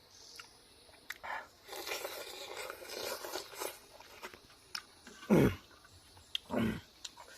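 Close-up eating sounds: chewing with wet mouth clicks and a crunchy stretch early on, then two short, louder low sounds about five and six and a half seconds in.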